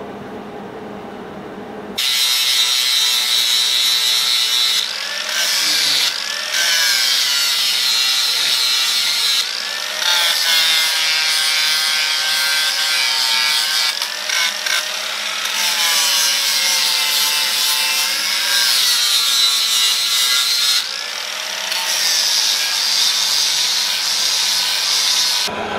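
Angle grinder grinding out a V-groove in a steel hinge piece, preparing the joint for welding. It starts about two seconds in and runs with a high whine whose pitch dips and recovers as the disc bites into the metal, easing off briefly several times.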